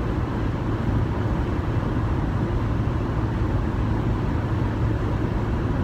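Steady low rumble of a vehicle in motion, with a constant low hum underneath.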